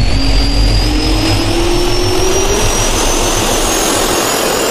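Jet-turbine sound effect spooling up: a loud rush of air with a whine that rises steadily in pitch.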